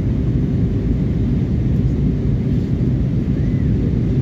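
Steady low roar of a passenger jet airliner in flight, heard from inside the cabin: engine and airflow noise.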